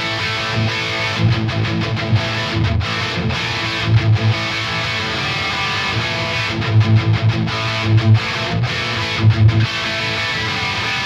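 Distorted electric rhythm guitar riff played through the Mars Plexi #1 amp-simulator plugin, with low chugging notes broken by several short stops.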